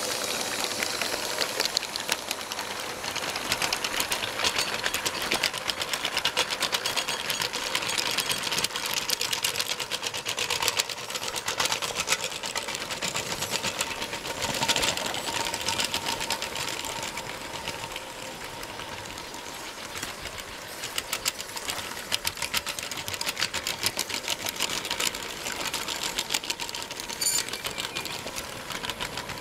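A 1:29 scale model train of Aristo-Craft GP40 diesel locomotives and USA Trains tank cars rolling past on metal garden-railway track: a fast, steady clatter of wheels clicking over the rails and joints, with a faint steady whine underneath.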